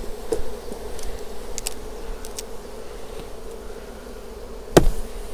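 Honeybees buzzing over an opened hive in a steady drone, with a few light clicks and one sharp knock near the end.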